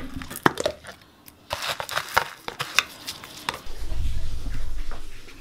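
Plastic tub and containers handled on a kitchen counter: a run of sharp clicks and taps of plastic on stone. Near the end, about a second of low rumble.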